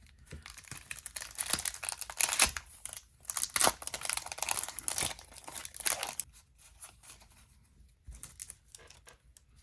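Pokémon trading-card booster pack's foil wrapper being torn open and crinkled, a dense crackling for about six seconds, followed by a few faint clicks near the end.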